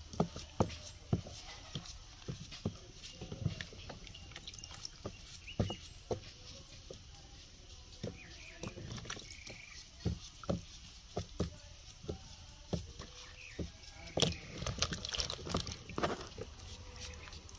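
Kitchen knife cutting pumpkin into chunks held in the hand: irregular sharp clicks of the blade through the flesh, with small splashes as pieces drop into a plastic bowl of water. The cuts come quicker near the end.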